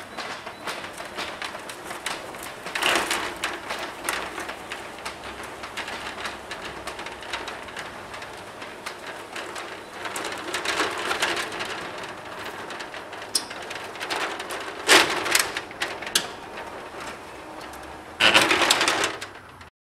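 Corrugated steel roller shutter door being pulled down, its slats rattling in the guides, with louder clattering bursts about three seconds in, around ten to twelve seconds, near fifteen seconds, and a final loud rattle near the end as it shuts.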